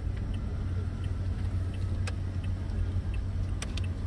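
Steady low rumble of a car's engine and road noise heard inside the cabin as it creeps in slow traffic, with a faint regular ticking about two a second and a few sharp clicks near the middle and end.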